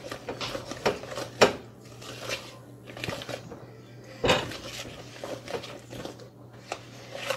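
A metal utensil stirring thick brownie batter in a bowl: irregular scraping and clinking against the bowl, with louder knocks about one and a half seconds in and just after four seconds in.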